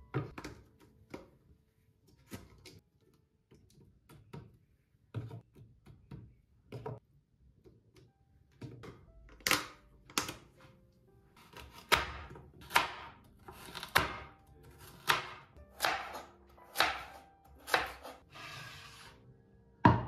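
Kitchen knife chopping carrots on a bamboo cutting board: sharp, regular knocks a little faster than one a second through the second half, after a few lighter, scattered knocks of a plastic food container being handled. Soft background music runs underneath.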